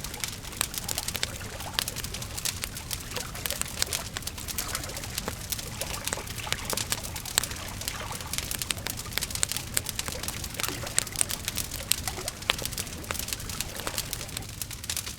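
Wood fire crackling steadily, with many quick sharp pops and snaps over a soft hiss.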